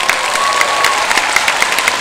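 Large crowd applauding, many hands clapping at once, with a faint held tone in the first second.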